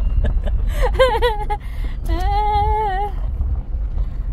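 Two drawn-out, wavering vocal notes, like a woman crooning an 'ooh', one brief about a second in and a longer one about two seconds in, over the steady low road and engine rumble inside a moving Chevrolet pickup's cab.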